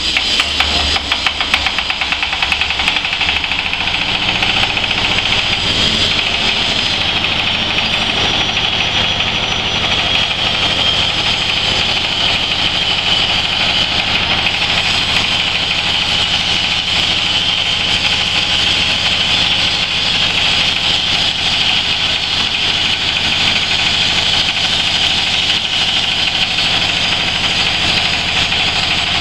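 Red single-cylinder stationary diesel engine running a stainless-steel hammer mill, a loud steady machine drone with a high whining hiss from the spinning mill. The engine's low note shifts in the first few seconds, then holds steady.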